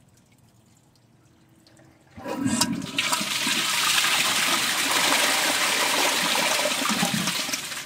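Kohler Gleam low-flow toilet flushing: after a couple of quiet seconds the flush starts suddenly, and water rushes through the bowl and down the drain, easing off near the end.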